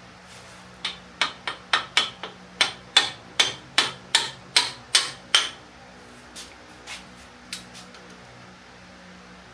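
A hammer striking steel in a quick run of about fourteen sharp blows, roughly two to three a second, then a few lighter taps.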